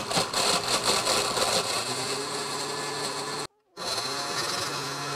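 A 16-speed countertop blender running on frozen strawberries. Hard chunks clatter against the glass jar at first, then the blender runs more steadily as the fruit breaks down. The sound cuts out briefly about three and a half seconds in, then carries on.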